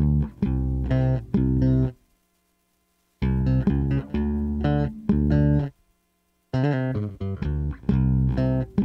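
Ibanez miKro GSRM20 short-scale electric bass played on its bridge J pickup with some treble dialled in. Plucked bass notes come in three short phrases separated by brief silences.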